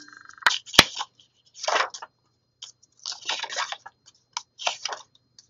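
Paper pages of a ring-bound planner being turned by hand: several short rustles of paper, with two sharp clicks in the first second.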